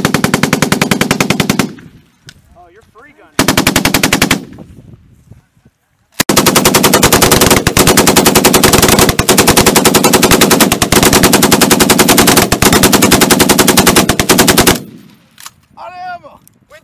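M240B 7.62 mm belt-fed machine gun firing full-auto: a burst of about two seconds, a short burst a little later, then one long unbroken burst of about eight seconds.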